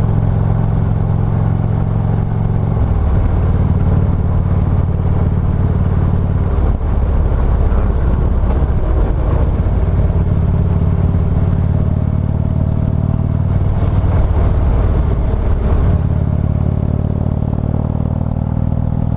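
Harley-Davidson Street Glide Special's V-twin engine running at road speed. Its note changes about three seconds in, settles again around ten seconds, and changes once more near sixteen seconds.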